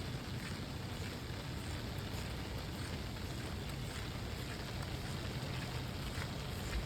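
Steady rain falling, an even hiss over a low rumble, with faint scattered taps.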